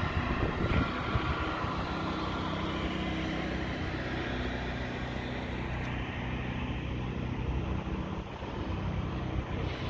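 An engine running steadily at a constant speed, its hum holding one even pitch throughout.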